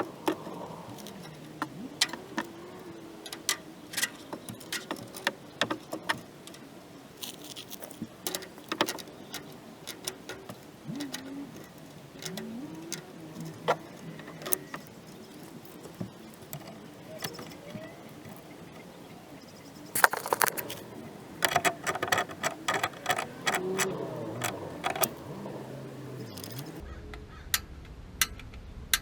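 Scattered sharp clicks and metallic rattling from hands and tools working on a gas water heater, with a dense run of clicks and rattles about two-thirds of the way in.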